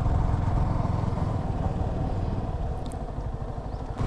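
Motorcycle engine running as the bike is ridden, a steady low rumble that eases off a little for a second or so near the end.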